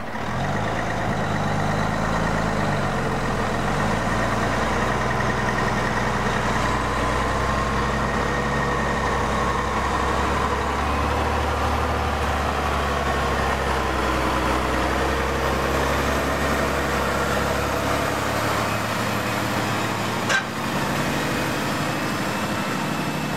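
Diesel engine of a loaded logging truck pulling a tree-length load on a pole trailer, driving slowly past. The engine note dips and rises in the first few seconds, then runs steady, with a short click about twenty seconds in.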